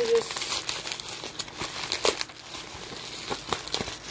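Packaging crinkling and rustling as a mailed parcel is handled and opened, with irregular crackles throughout.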